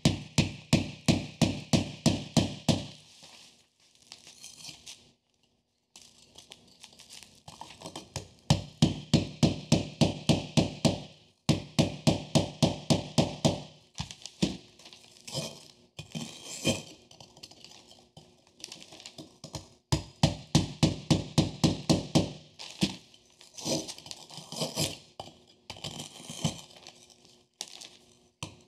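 Claw hammer tapping a hand-held chisel into a piece of pumice rock, chipping out a shallow hollow. The light strikes come about four a second in runs of a few seconds, each with a short ring, with brief pauses between runs.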